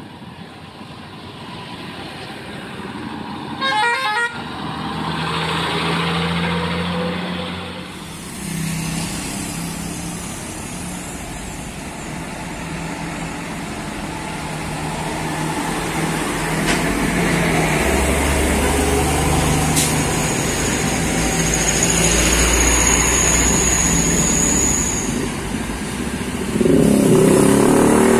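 Diesel engines of old Mercedes-Benz NG-series trucks running and pulling away in road traffic, with a brief horn toot about four seconds in. Passing traffic is loudest near the end.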